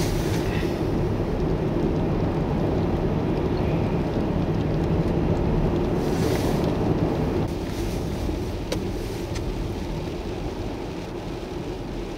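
Steady low rumble of vehicles driving on a snow-covered highway, a little quieter from about halfway through.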